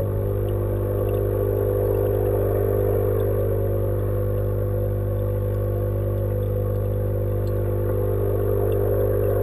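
Steady electric hum of the aquaponics tank's water pump, heard underwater: a low drone with a buzzier tone above it, unchanging in pitch and level.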